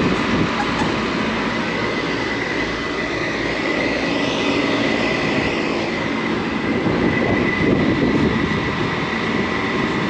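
Steady mechanical drone of rooftop packaged HVAC units running, their condenser fans and compressors blowing, with a thin steady whine held over it.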